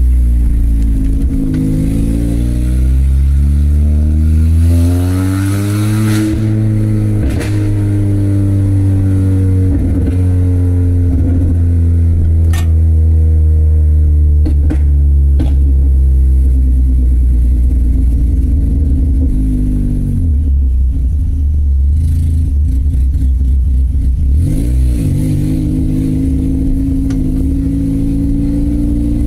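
Peugeot 206 engine with a straight-through exhaust running direct from the manifold, very loud as heard from inside the cabin while driving. It revs up over the first several seconds, its pitch then sinks slowly as it eases off, drops suddenly about two-thirds of the way through and climbs again shortly after, with a few sharp clicks along the way.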